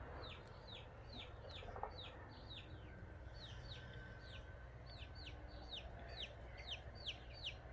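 Young chicks peeping: a steady, faint run of short high peeps, each falling in pitch, about three a second.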